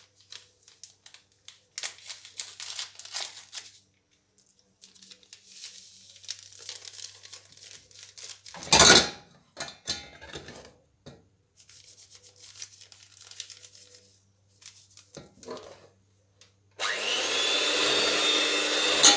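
Electric hand mixer switched on about seventeen seconds in and running steadily, its beaters whisking eggs and sugar in an enamel pot. Before that, scattered light rustling and small clicks as a vanilla sugar sachet is handled and emptied into the bowl, with one short louder noise about nine seconds in.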